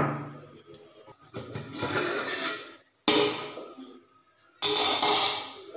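Aluminium plate lid clanking on the cooking pot, one sharp metallic knock with a low ringing tail at the start. Then three rushing, hissing swishes follow, each about a second long.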